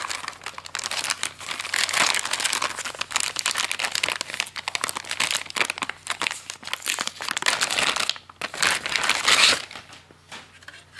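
Clear plastic bag crinkling and rustling as hands work a small network switch out of it, loudest shortly before it dies down near the end.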